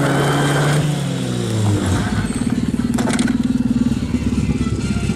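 Skoda 105 rally car engine running at steady revs, then dropping after about two seconds to a lumpy, rapidly pulsing low-rev run.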